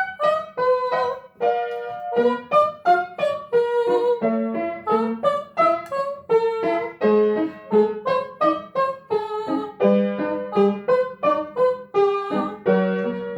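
Piano or electric keyboard playing a lively accompaniment of quick, separate notes, several a second, with a few longer low notes underneath, for a children's chirping vocal exercise.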